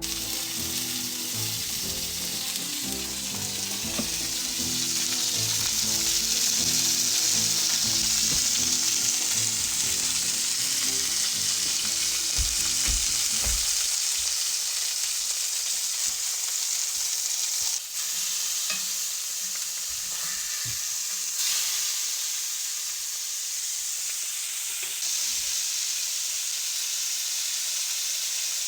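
Burgers frying in a pan: a steady sizzle. Background music plays under it and stops about halfway through.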